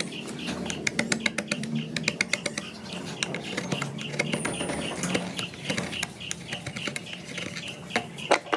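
Hand carving chisel paring wood: a run of rapid, irregular crisp clicks and crackles as the blade shears through the grain, with one louder snap near the end.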